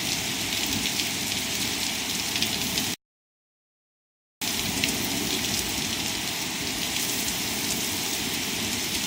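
Torrential rain pouring down, a steady hiss with sharp drips and splashes through it. It cuts to dead silence for about a second and a half about three seconds in, then resumes.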